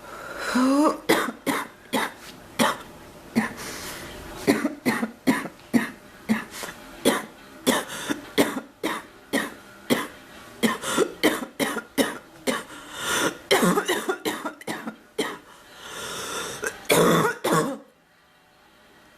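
A woman's long coughing fit: dozens of short, harsh coughs in quick runs, two to three a second, with a louder drawn-out bout near the end. It stops suddenly about eighteen seconds in. It is the persistent cough of someone who is ill.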